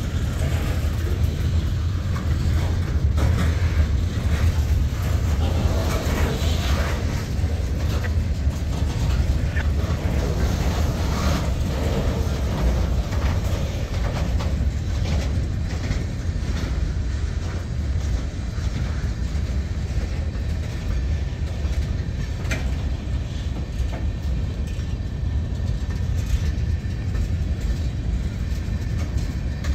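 Freight train cars, boxcars and tank cars, rolling past on the rails: a steady low rumble of wheels on track with scattered clicks and clanks.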